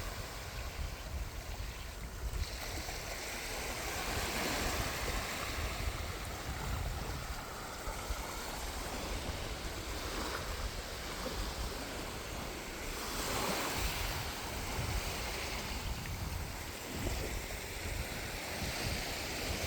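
Sea waves breaking and washing onto the shore, the surf swelling and easing every few seconds.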